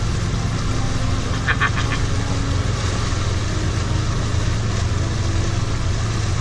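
Outboard motor running steadily as the boat moves, a low drone under a hiss of wind and water. About a second and a half in comes a brief quick run of clicks.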